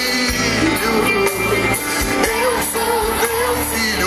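Live gospel band music: an instrumental passage of the song, with electric bass and guitar and a wavering melodic line over it.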